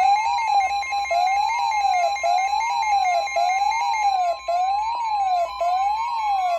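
Emergency weather alert tones sounding for a severe thunderstorm warning: a steady high tone held under a siren-like tone that rises and falls about once a second. Near the end a second tone starts and glides slowly upward.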